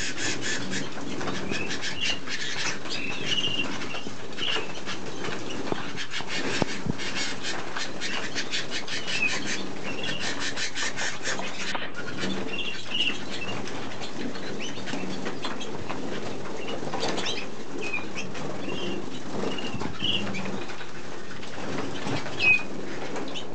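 A flock of Malinois Waterslager canaries calling with many short chirps, and for the first half runs of fast repeated notes, with wings fluttering now and then. One louder call stands out near the end.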